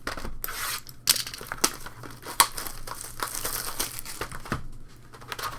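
Crinkling and tearing of a foil trading-card pack wrapper being opened and handled, a dense crackle with sharp clicks that tails off near the end.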